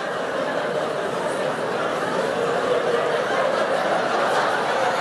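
A large audience laughing together, many voices blended into a steady wash of laughter that swells slightly.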